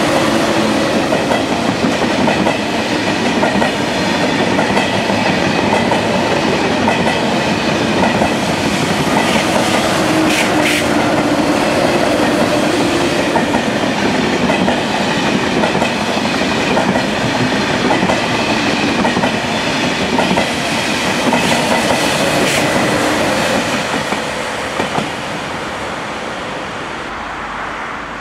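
TGV high-speed trainset passing at speed: a long, steady rush of wheel and rolling noise on the rails that dies away about twenty-four seconds in.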